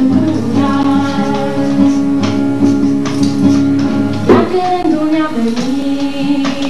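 A woman singing a song with long held notes, accompanying herself on a strummed acoustic guitar; her voice shifts to a new note about two-thirds of the way through.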